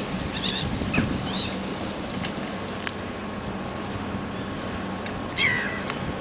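Harbour ambience: a steady rush of wind and water under a faint steady hum, with a few short bird calls, the most prominent about five and a half seconds in, and scattered clicks.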